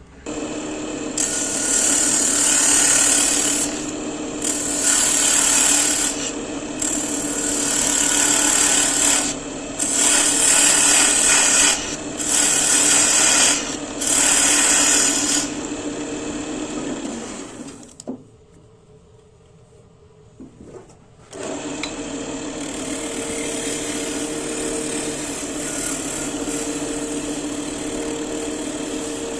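Electric power tool cutting wood: a steady motor hum with six or so loud bursts of cutting noise in the first half. It dies down for a few seconds past the middle, then runs steadily with no cutting.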